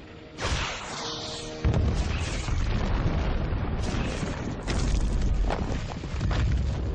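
Missile explosions against sandstone rock: a heavy blast about a second and a half in, then continuing booms and rumble with further hits, over dramatic film score music.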